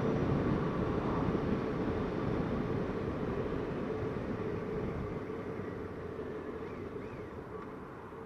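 Motorcycle on the move: wind rush and the engine's steady note, fading gradually as the bike slows on the approach to a junction.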